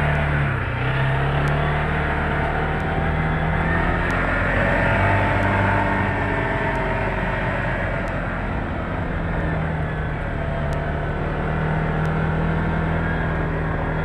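Four-wheeler engine running as it is driven across a rough grass field, its steady note easing off briefly in the middle and then coming back.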